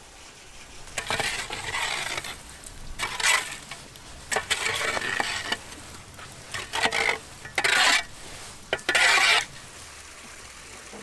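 Burning charcoal and embers being raked across a brick oven floor with a pole, in about six short bursts of scraping with a glassy clinking of coals.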